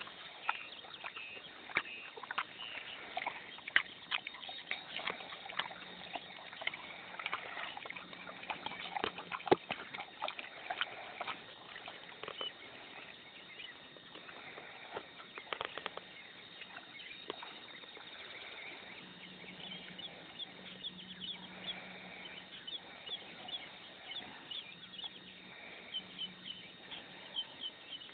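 Pig grunting softly and snuffling, with many small clicks and rustles throughout; birds chirp in the background during the second half.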